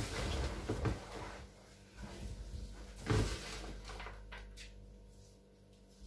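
Gloved hands working potting soil in a plastic flowerpot: soft rustling and pressing, with a few dull knocks near the start and one about three seconds in.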